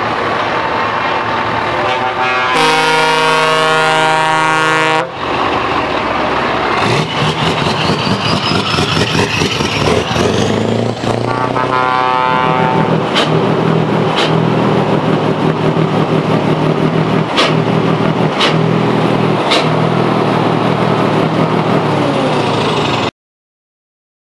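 Scania R620 truck with its V8 engine running loud as it drives past. A long multi-tone air horn blast comes about three seconds in, and a second, shorter horn call around eleven seconds. The sound cuts off abruptly near the end.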